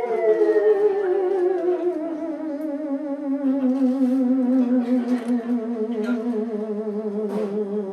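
Theremin holding one long note with wide vibrato, sliding slowly and smoothly down in pitch, with a few light drum and cymbal taps in the middle and near the end.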